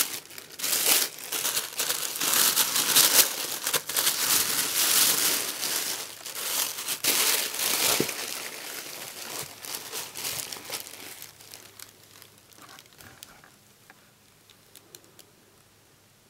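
White tissue paper crinkling and rustling as hands unwrap a doll from its box. It is loud and busy for the first eight seconds or so, then thins to occasional rustles and is nearly quiet near the end.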